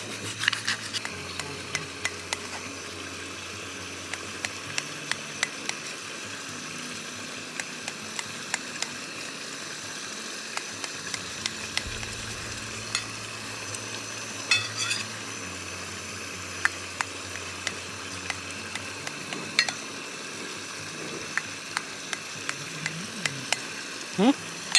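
Knife clicking and tapping against a steel plate while cubing a block of paneer, with many short sharp ticks throughout. Under it runs a steady frying sizzle from the pan on the camping stove.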